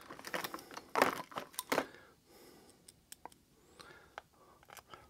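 Small screws and a screwdriver being handled at the plastic case of a Kenwood TH-D74 handheld radio as the case screws are put in: a cluster of light clicks and rustles in the first two seconds, loudest about a second in, then a few faint ticks.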